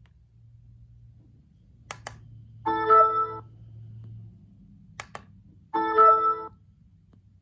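Twice, a button on a portable Bluetooth speaker clicks, and the speaker answers a moment later with a short electronic chime of several steady tones sounding together. The chime is the speaker's prompt tone acknowledging the button press, and it has a Windows 7–like sound.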